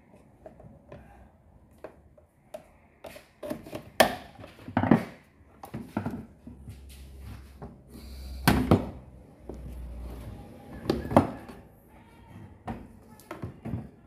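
Irregular plastic clicks, knocks and scrapes as the drain-pump housing of an Indesit condensation dryer is pried loose and handled with a screwdriver, with a few sharper knocks and a low rumble for a few seconds midway.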